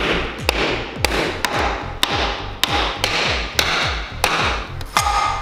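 Hand hammer striking the steel of a Tatra truck axle, a steady run of sharp blows about two a second.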